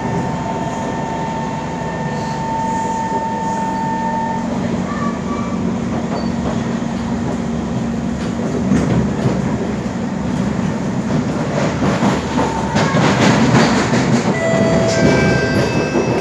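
Interior noise of a Kawasaki C151 metro train running: the electric traction motors whine at a steady pitch for the first few seconds. From about halfway, louder wheel-on-rail rumble and rattling clicks take over, with brief wheel squeals near the end.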